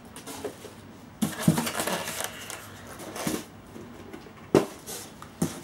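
Packaging being handled as a polystyrene foam insert is lifted out of a cardboard box: scraping and rustling, then two sharp knocks in the second half.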